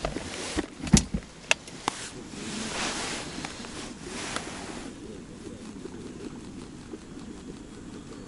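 A few sharp knocks and clicks with rustling from fishing gear and clothing being handled close to the microphone. After about five seconds only a steady low rumble remains.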